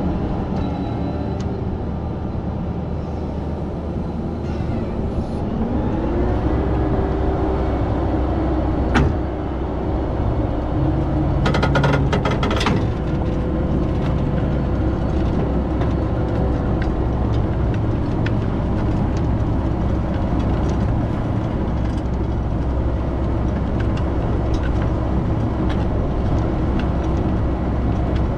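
Tractor-drawn Grimme GL 32B potato planter at work: the Fendt 828 Vario's steady engine drone with the planter's wheels and soil-working tools rattling and scraping through the soil. About six seconds in the engine note rises and the low drone grows fuller; a sharp click comes near nine seconds and a short burst of metallic clicking around twelve seconds.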